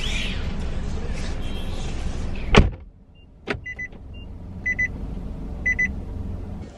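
Steady car cabin noise, then a car door shutting hard about two and a half seconds in. After that the sound is quieter, with a click and short, high electronic beeps about once a second.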